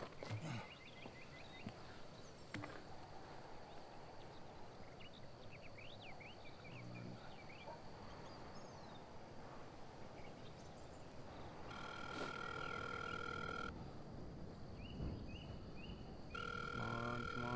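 Telephone ringback tone heard from a phone held to the ear, ringing twice for about two seconds each while the outgoing call waits to be answered. Birds chirp faintly in the first half over quiet outdoor background.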